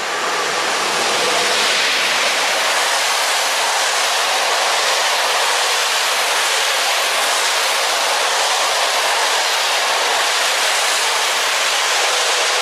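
PKP Intercity passenger train hauled by an EP07 electric locomotive passing at speed: a loud, steady rush of the coaches running over the rails.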